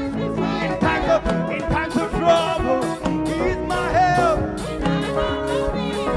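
Live gospel praise band music with a steady drum beat.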